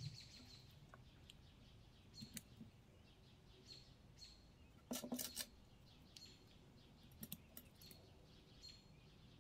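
Near silence with a few faint clicks of knitting needles being handled, and some faint short high chirps.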